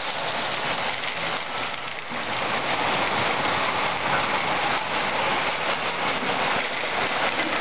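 Model trains running on a toy train layout: a steady rattle of metal wheels on the track.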